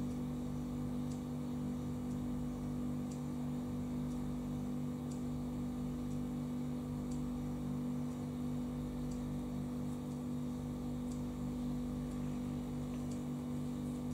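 Quiet room tone: a steady low hum, with faint short ticks about once a second.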